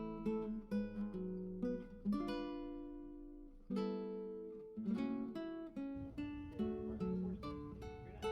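Acoustic guitar music: plucked and strummed chords, each ringing out and fading before the next.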